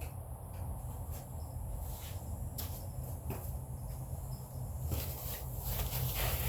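Scattered faint clicks and taps of hand tools and parts being handled, over a steady low hum.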